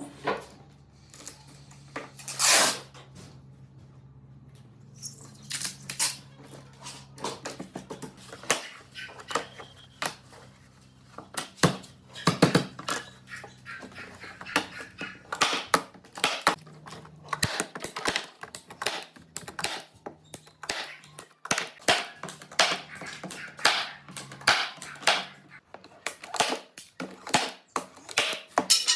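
Irregular knocks, taps and scrapes of hand work on wood, growing busier about halfway through, over a faint steady low hum. One sharper knock stands out about two and a half seconds in.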